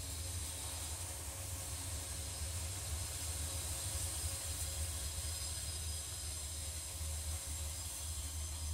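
Steady background hiss over a low rumble, with no distinct event.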